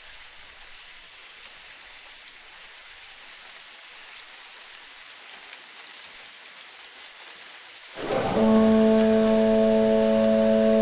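A soft, steady hiss like light rain, then about eight seconds in a loud held chord of several steady tones starts suddenly and sustains.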